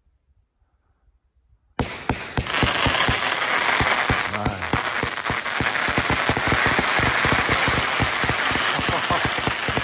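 500-gram consumer firework cake: near silence for almost two seconds, then it suddenly starts firing. A rapid, unbroken string of launch shots follows over a dense crackle, as coloured comets go up.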